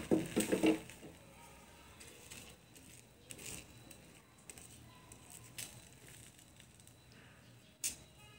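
Faint scraping and tapping of a metal spatula on a dosa tawa as beaten egg is spread over a cooking dosa. A brief voice-like sound comes at the very start and is the loudest thing.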